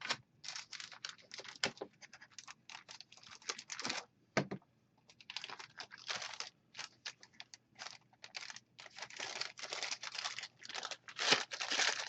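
Paper and plastic packaging being handled by hand: an irregular run of rustling, scraping and small clicks, busiest near the end.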